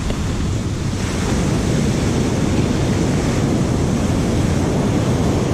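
Ocean surf washing up the beach in a sheet of foam and draining back over the sand: a steady rushing of water that swells slightly about a second in.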